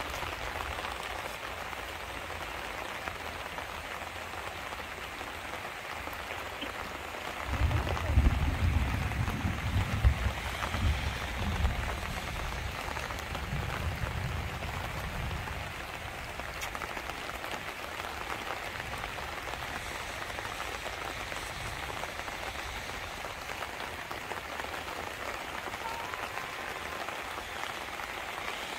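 Steady rain falling on lotus leaves, an even hiss. A low rumble on the microphone joins it from about eight seconds in and lasts until about fifteen seconds in.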